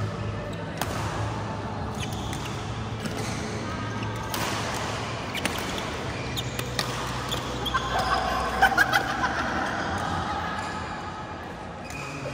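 Badminton play in a large hall: rackets hitting the shuttlecock in sharp cracks every second or so, with shoes squeaking on the court mat, over a steady low hum and distant voices. A cluster of squeaks and hits about eight to nine seconds in is the loudest moment.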